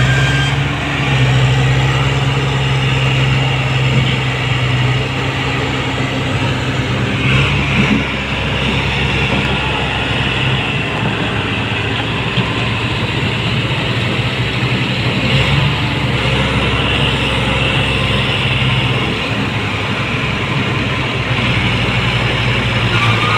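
Diesel farm tractor engines working under heavy load, pulling trailers stacked with sugarcane through mud, with a steady low engine drone.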